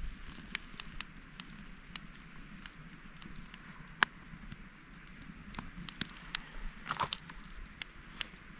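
Small campfire, just lit with dryer lint, crackling with irregular sharp pops over a low hiss. The loudest pop comes about four seconds in, and a quick cluster follows near the end.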